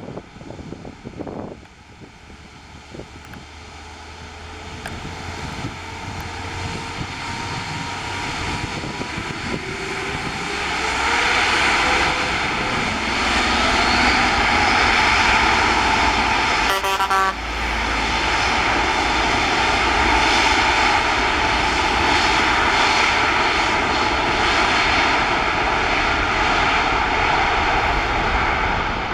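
Airbus A350-900's Rolls-Royce Trent XWB jet engines at takeoff power, a roar that grows louder over the first ten seconds or so and then holds loud, with a faint whine gliding in pitch.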